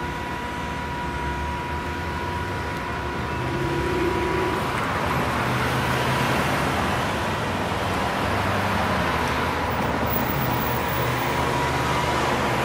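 Road traffic going past: a steady rush of car tyres and engines that grows louder about three seconds in and stays up, with a faint steady high tone underneath.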